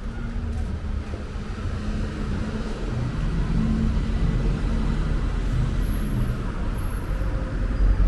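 Road traffic with a motor vehicle's engine running, growing gradually louder over a low rumble.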